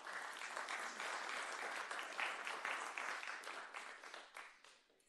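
Audience applauding; the clapping holds steady, then thins out and dies away near the end.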